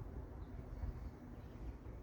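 Low, uneven rumble of rubbing and handling noise, with no distinct crack.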